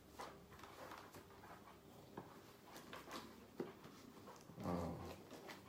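Soft rustling and light clicks of packaging being handled as a motorcycle helmet is unboxed, with a brief voice-like murmur about three-quarters of the way in.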